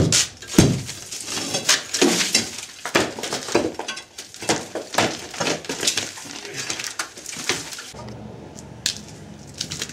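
Irregular knocks, clinks and scraping as the old wooden cellar-window frame and its wire mesh are worked loose and pulled out of the masonry opening. The clatter stops about eight seconds in, leaving a faint steady hum.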